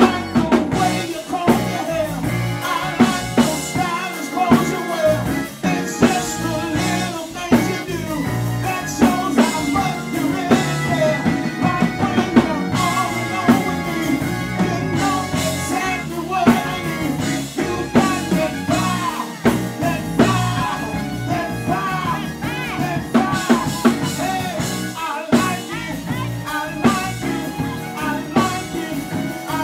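Live band playing: a man singing into a microphone over electric guitar and a drum kit.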